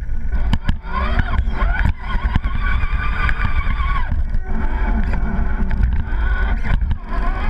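Radio-controlled rock crawler's electric motor and gear drive whining, the pitch rising and falling with the throttle and holding steady for a while, over a heavy low rumble.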